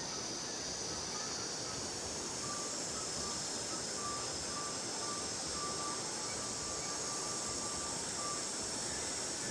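Insects droning steadily in a high, unbroken chorus, with a faint series of short, evenly spaced high notes repeating through the middle.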